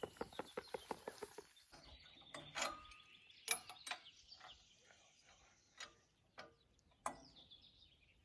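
Scattered metal clicks and knocks from handling a small petrol walk-behind cultivator that is not running, with birds chirping. It opens with a quick run of ticking, about six a second, that stops about two seconds in.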